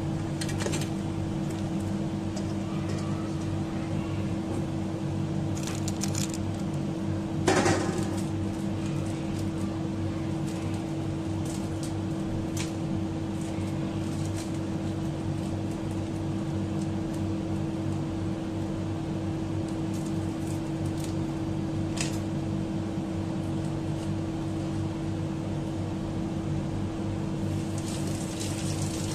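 A steady appliance hum with a constant low tone runs over a boiling stockpot. A few sharp clicks and knocks cut in, the loudest about seven seconds in.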